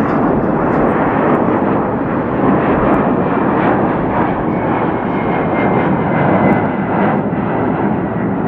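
Jet airliner's engines running at takeoff power as it climbs away: a loud, steady rush with a faint high whine coming through in the middle.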